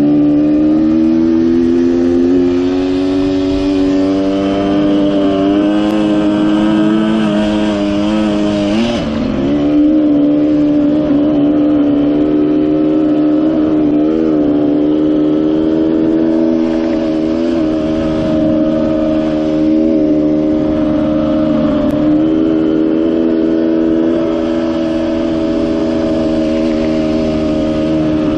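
Dirt bike engine running steadily at cruising revs. The engine pitch dips and recovers about nine seconds in, with small throttle wobbles after that.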